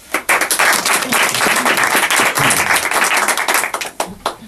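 Audience applauding: many hands clapping together for about four seconds, then dying away to a few last single claps.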